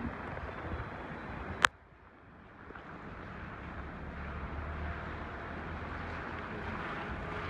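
Wind and the low running noise of a moving vehicle, heard as a steady rush with a low hum. About a second and a half in there is a single sharp click, after which the sound briefly drops away and then builds back up.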